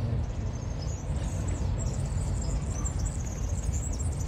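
Small birds chirping in quick high twitters, over a steady low rumble.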